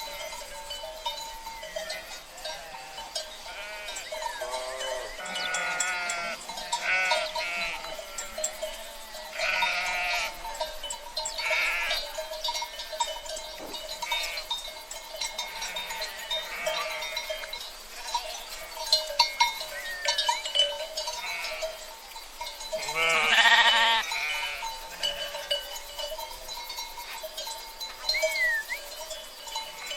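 Flock of sheep bleating: a series of wavering calls from several animals, some overlapping, the loudest near the end, over a steady background tone.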